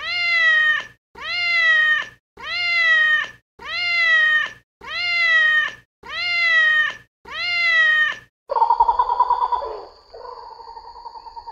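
An animal call repeated seven times, each copy alike, just under a second long and about a second and a quarter apart. Each call is high and pitched, rising and then falling slightly. About eight and a half seconds in, a different, buzzing, pulsing call takes over.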